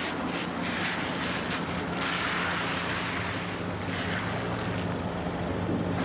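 A car's engine running steadily while its tyres hiss on wet pavement, as the car drives slowly into a parking space.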